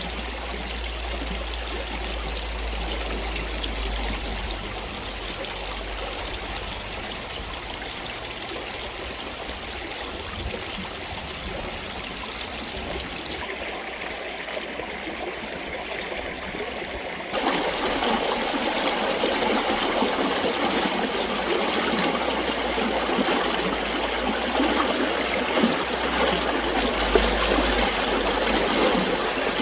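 Stream water running steadily; about seventeen seconds in it suddenly becomes louder and fuller.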